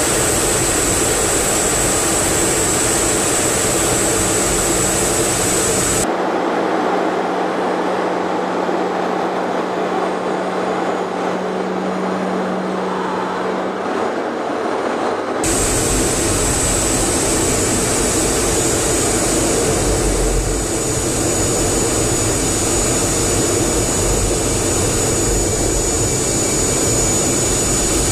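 Loud, steady jet engine and airflow noise inside an F/A-18 Hornet's cockpit, with a steady high-pitched whine over it. About six seconds in the sound turns abruptly thinner, with a low steady hum, and switches back about nine seconds later.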